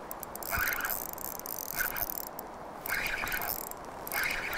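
Fishing reel clicking and buzzing in short bursts, about one a second, while a hooked coho salmon is played.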